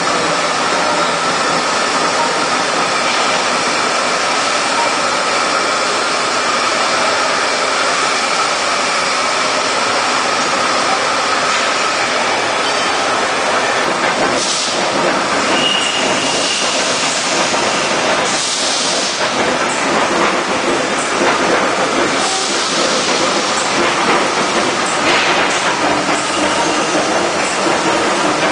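Heller CNC crankshaft pin milling machine cutting a crankshaft pin: a steady machining din carrying a faint steady tone, with bursts of hiss and clatter from about halfway on.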